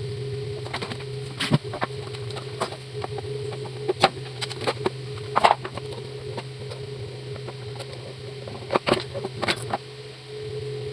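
Irregular clicks and knocks of small hard parts being handled and worked on during a table fan repair, over a steady low hum.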